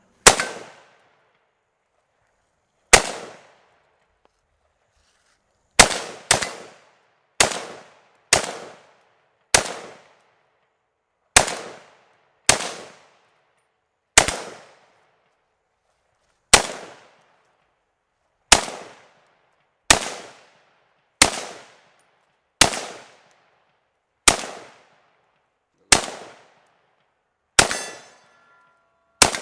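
PSA AK-47 GF4 rifle in 7.62×39 fired semi-automatically in slow, single aimed shots, about nineteen of them spaced one to three seconds apart. Each shot has a sharp report that fades away in a short echo.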